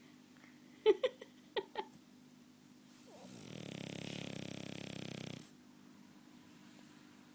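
French bulldog snoring in its sleep: four short, sharp sounds about a second in, then one long snore of about two seconds.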